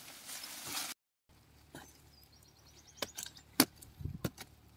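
Outdoor ambience with a hiss that cuts off sharply about a second in. Then a bird gives a rapid, high, chattering trill, and several sharp clicks follow, the loudest about two-thirds of the way through.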